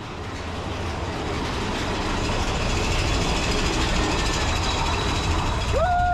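Big Thunder Mountain Railroad mine-train roller coaster running on its track: a steady rumbling clatter with rushing wind noise that swells in over the first couple of seconds. A high tone slides up and then holds just before the end.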